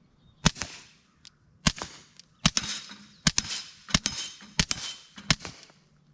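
Seven suppressed shots from a Ruger Mark IV .22 LR pistol with a Dead Air Mask suppressor, firing supersonic CCI 40-grain rounds. There is one shot about half a second in, then a steady string of about one shot every 0.7 s. Several of the later shots are followed by the high ring of a hit steel plate.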